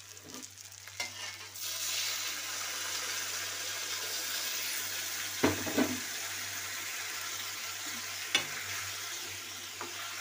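Water added to a hot kadhai of mashed potatoes and fried masala sets off a steady hissing sizzle that starts abruptly about a second and a half in. A metal spatula knocks against the pan twice as it stirs.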